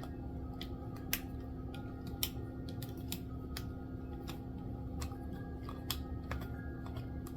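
Small screwdriver turning tight screws out of a plastic battery cover: a scattering of faint, irregular clicks and ticks over a steady low hum.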